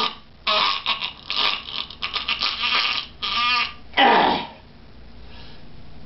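A puppeteer's voice making comic death-throe noises: a run of rasping, sputtering gasps, a short strangled cry, then one loud rasping gasp about four seconds in, before the voice falls silent.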